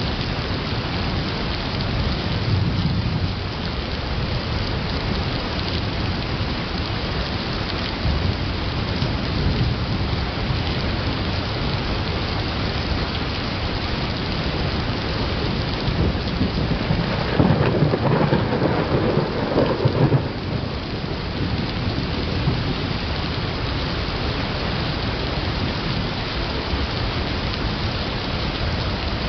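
Thunderstorm: steady rain with thunder rumbling. A louder peal of thunder swells about two-thirds of the way through and rumbles for a few seconds.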